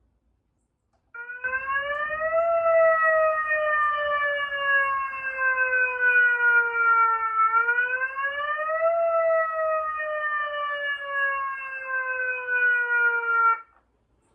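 Megaphone siren sounding a wail: the tone sweeps up, glides slowly down, sweeps up again and falls once more. It starts about a second in and cuts off suddenly near the end.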